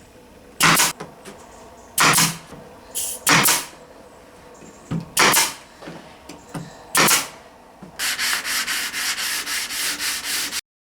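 Sandpaper rubbed by hand over chestnut wood: a few single long strokes, then fast, even back-and-forth strokes about five a second, which stop abruptly near the end.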